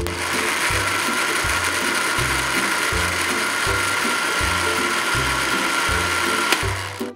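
Electric countertop blender running at full speed, its motor whining steadily as it purees mango chunks, then switching off near the end. Background music with a steady bass line plays underneath.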